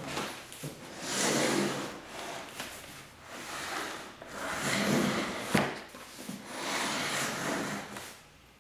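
Packaging being handled during an unboxing: several rubbing, scraping swells, like cardboard or plastic sliding, with a few sharp knocks in between.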